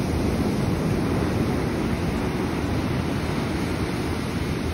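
Ocean surf breaking and washing up a sandy beach, a steady rush of water, with wind rumbling on the microphone.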